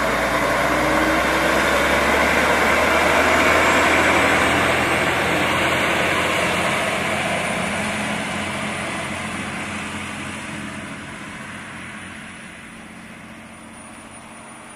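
Chizu Express HOT3500-series diesel railcar passing close by: its diesel engine and wheels on the rails make a steady rumble. The rumble is loudest a few seconds in, then fades away as the railcar pulls off down the line.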